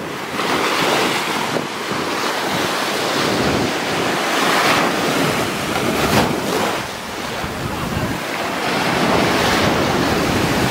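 Small surf waves breaking at the shoreline and washing up the sand, rising and falling as each wave comes in. Wind buffets the microphone.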